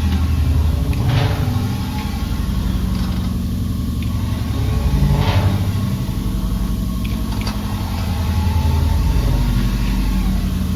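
A motor running steadily, heard down a mine drill hole, its low drone drifting slightly in pitch. A few brief scraping noises rise over it about a second in and again near the middle.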